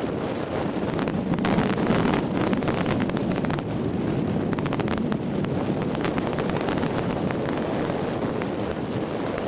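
Strong, gusty wind buffeting the camera microphone: a steady rushing noise with brief crackles, swelling in a gust about two seconds in.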